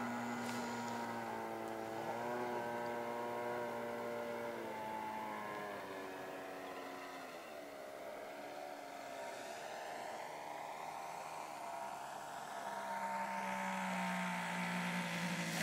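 Radio-controlled Cub model plane's motor and propeller droning steadily in flight, throttled back about five seconds in to a lower, quieter tone. Near the end the motor tone grows louder again as the plane comes in low over the field to land.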